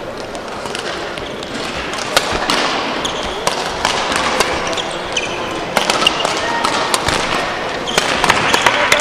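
Sports hall during badminton play: sharp racket-on-shuttlecock hits come at irregular moments over a steady murmur of voices, and they grow busier near the end.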